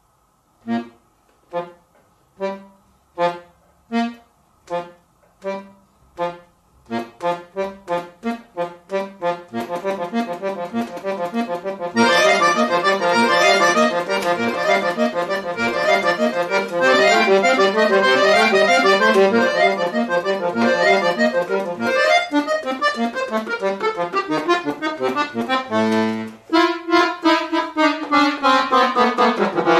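Chromatic button accordion played solo. It opens with short, detached chords about one a second, and these quicken into a dense stream of notes. From about twelve seconds in the playing is full and loud. Near the end it thins to a briefly held low chord and falling runs.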